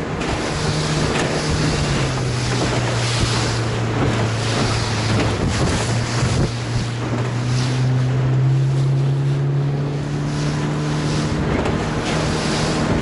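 Motorboat engine running under way, with wind and water rushing past. The engine's hum drops in pitch about a second in, then rises slowly later on, while wind gusts buffet the microphone.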